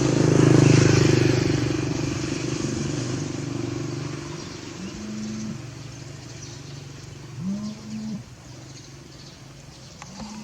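A motor vehicle passing close by: its engine hum swells about a second in, then fades away over several seconds. Later, a few short low tones sound, each about half a second long.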